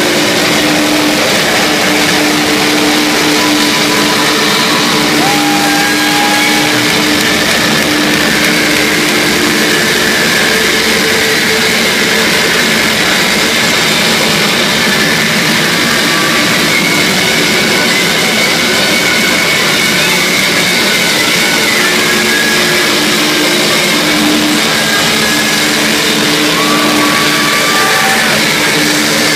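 A shoegaze rock band playing its live noise section: a loud, unbroken wall of distorted, effects-pedal guitar noise with a steady low drone and stray high whistling tones drifting in and out.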